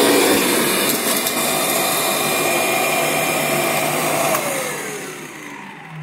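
Kirby Generation 6 upright vacuum running steadily, then switched off with a click about four seconds in, its motor winding down with a falling whine.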